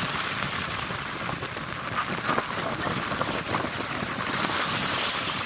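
Small waves washing up the sand at the water's edge, with steady wind rushing over the microphone.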